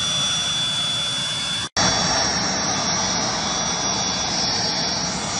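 Private jet's turbine engines running on the ground: a steady loud rush with a thin high whine. It breaks off for a split second nearly two seconds in, then carries on with a higher, stronger whine.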